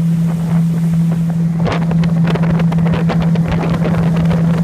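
Outboard jet motor of an aluminium Smoker Craft bass boat running at a steady speed under way, one constant engine note, with wind buffeting the microphone.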